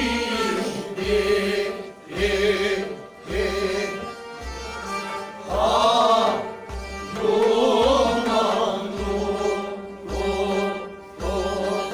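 Kashmiri Sufiyana music: voices singing over instruments that hold steady notes, with a hand drum beating a slow, regular pulse about once a second. The singing swells louder about halfway through and again a couple of seconds later.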